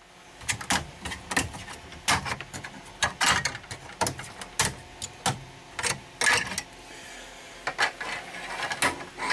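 Irregular clicks and knocks, a few a second, from hands handling plastic and metal parts in the battery bay.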